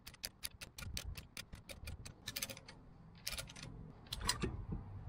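A hand ratchet clicking fast and evenly, about six clicks a second, as it turns a brake caliper piston spreader tool. The clicking stops about two seconds in, and a few separate metallic clicks follow as the tool is handled.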